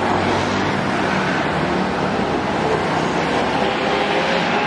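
Steady road-traffic noise: a coach's diesel engine as it turns off the road, with a motorbike and a light box truck driving past close by. The engine hum and road noise hold at an even level throughout.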